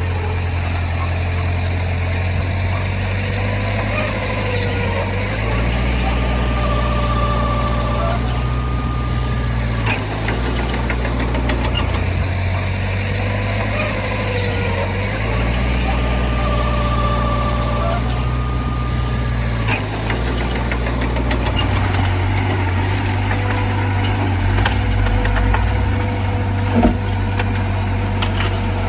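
Heavy diesel engine of earthmoving machinery running. Its load shifts in a cycle of about ten seconds, with a whine that rises and falls over it.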